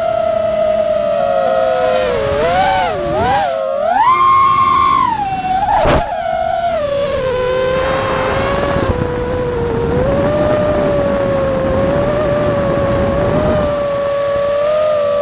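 FPV quadcopter's brushless motors and propellers whining, the pitch swooping up and down with the throttle and then settling into a steadier, lower whine. A sharp click about six seconds in, and a rushing noise in the second half.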